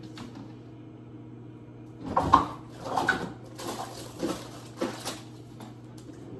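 A microwave oven running with a steady low hum. From about two seconds in, irregular knocks and rustles of kitchen items being handled sound over it, the loudest a little past two seconds.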